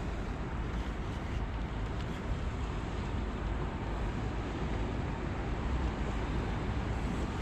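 Steady wind noise rumbling on the microphone, with no distinct clicks or knocks.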